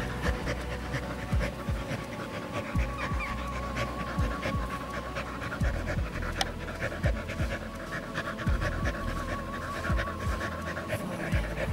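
A Samoyed dog panting, quick breaths repeating.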